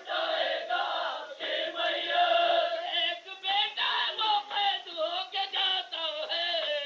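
A group of voices chanting a noha, an Urdu lament for the martyrs of Karbala, in a wavering melodic line.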